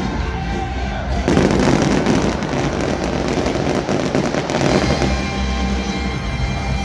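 Fireworks crackling rapidly and densely, starting about a second in and dying away after about four seconds, over loud music.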